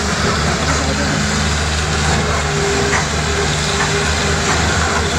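A heavy engine running steadily under loud, even background noise.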